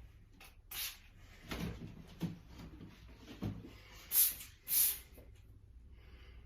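Half a dozen short rustles and knocks, the two loudest and hissiest about four and five seconds in.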